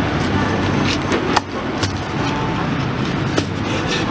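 Street traffic running steadily in the background, with a few sharp knocks: one about a second and a half in, another just after, and one more about three and a half seconds in.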